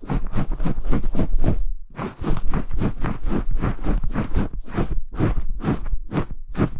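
Close-miked bristle brush strokes scrubbing against the microphone, as in an ASMR hair-washing session. The strokes are short and scratchy and come in a steady rhythm of about four a second, with a brief pause about two seconds in.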